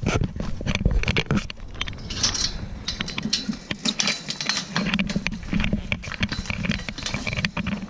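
Irregular clicks, knocks and rustles of someone walking on a dirt-and-gravel path, with a camera being handled.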